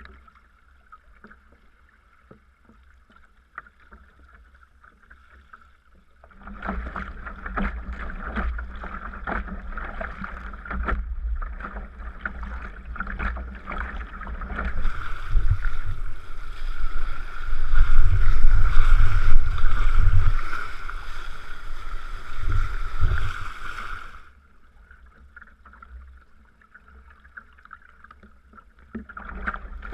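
Sea kayak under way: paddle strokes splashing and water slapping and lapping around the hull. It is faint for the first few seconds, grows louder about six seconds in with a deep rumble, is loudest past the middle, then falls back to faint near the end.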